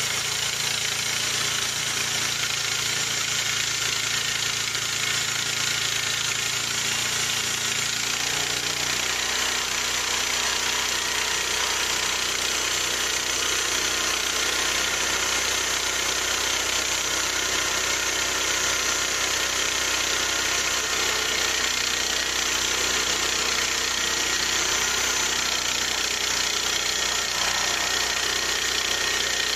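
Harbor Freight portable bandsaw sawmill running, its small engine driving the blade steadily. The low engine tone changes about eight seconds in, then holds.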